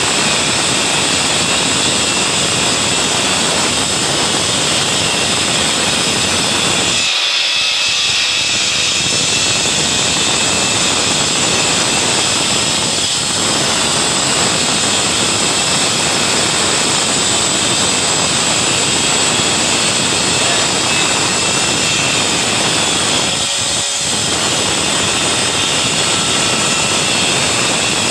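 Electric wall chaser with a dust-extraction hose running while cutting a groove into a plastered wall: a loud, steady grinding whine, with a few brief dips.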